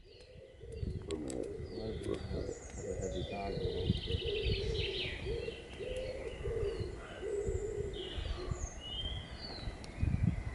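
A pigeon cooing in a low phrase repeated over and over, with small birds giving short high chirps above it.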